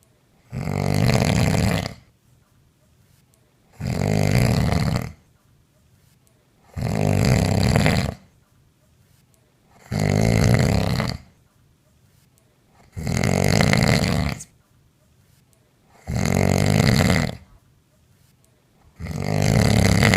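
A sleeping woman snoring loudly, one long rattling snore about every three seconds, seven in all.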